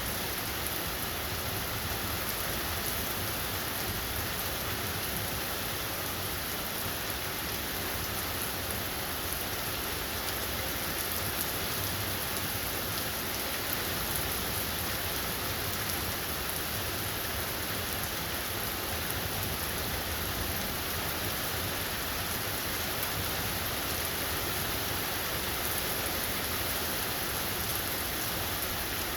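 Steady heavy rain falling and pattering on surfaces, an even wash of noise with no breaks or thunder claps.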